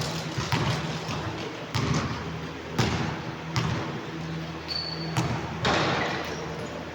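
A basketball bouncing on a court during play: sharp, irregular thuds about every half second to a second, over a steady low hum. A brief high squeak comes near five seconds in.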